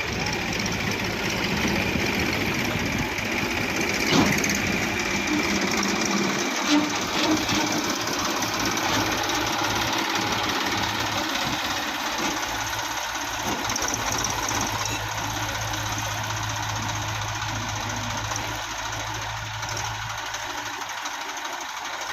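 Diesel engine of heavy machinery running steadily, with a few brief sharp knocks in the first several seconds.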